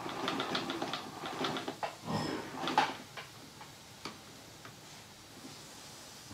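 Sewing machine stitching through the layers of a quilt, its needle ticking rapidly and evenly for about two seconds. Then the bulky quilt is pushed and dragged across the table in a louder rustle, followed by a few scattered clicks.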